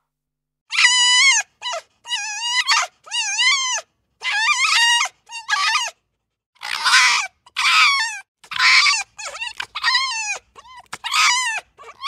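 A fox calling repeatedly: high-pitched whining calls that waver up and down in pitch, then harsher, raspy calls from about seven seconds in, coming about once a second.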